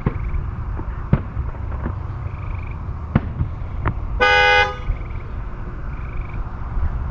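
Distant fireworks bursts going off as several sharp bangs over a steady low rumble, with a single car-horn honk of about half a second, the loudest sound, about four seconds in.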